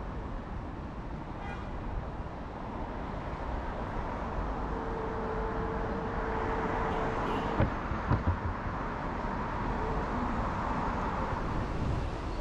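Road traffic passing on a busy multi-lane city street, a steady rush that swells in the middle as vehicles go by. A steady whine is heard for about three seconds partway through, and about eight seconds in there are three sharp thumps, the loudest sounds.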